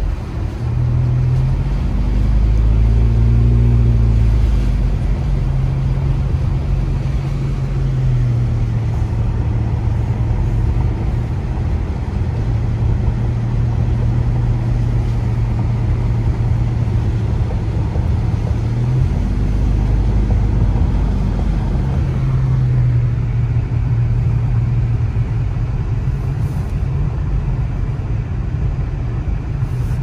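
Car engine running and road noise while driving, the engine note rising and falling about two seconds in and again about twenty seconds in as the speed changes.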